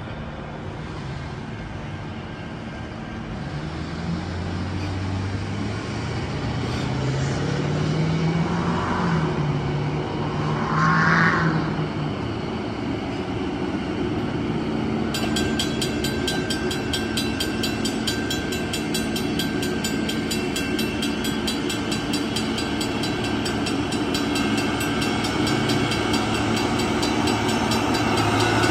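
Diesel engines of approaching rail track-maintenance machines running and growing steadily louder. About halfway through, the level-crossing warning bell starts ringing in an even rhythm as the crossing signals activate.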